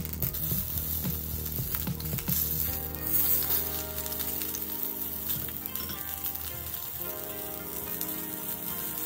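Salmon head sizzling on a hot cast-iron grill pan, with a few light clicks of metal tongs in the first few seconds as the fish is lifted and set back down.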